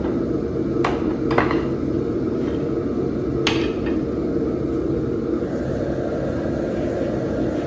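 Forge running with a steady rumbling roar, and three sharp metallic clinks of steel being handled in the first four seconds.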